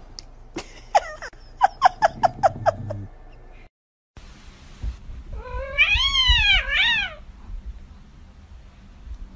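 Domestic cat vocalising: a quick run of about ten short, sharp meows over two or three seconds, then a long meow that rises and falls, followed by a shorter one.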